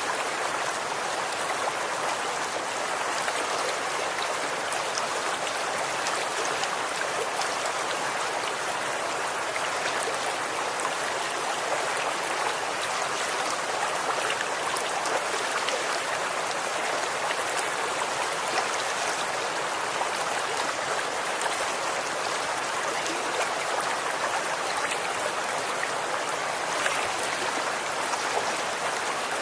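Running water: a stream flowing steadily over stones, a continuous babbling with fine splashes and no change in level.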